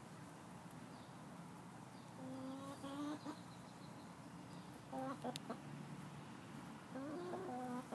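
Hen clucking softly in three short bouts of low calls: about two seconds in, around five seconds, and again near the end.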